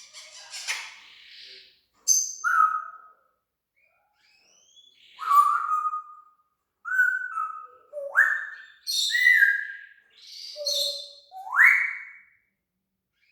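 African grey parrot whistling and squeaking: a string of short whistles and hissy chirps with brief gaps between them, two of the whistles swooping sharply up in pitch in the second half.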